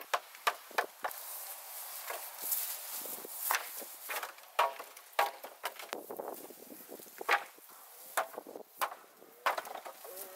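Old weathered wooden boards being knocked and pried loose with a hammer: irregular sharp wooden knocks and cracks, several in quick succession at times.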